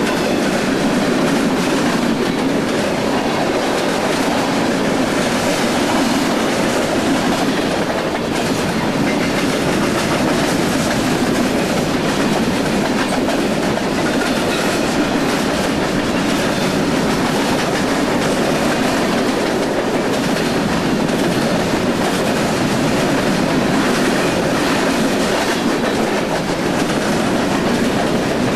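Freight cars of a manifest train rolling past at speed: the steady, loud noise of steel wheels running on the rails.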